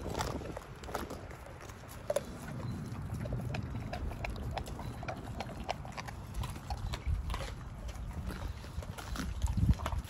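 American bully dog chewing raw whole chicken: many quick, sharp crunches and clicks of bone and meat over a low rumble, with a louder low thump near the end.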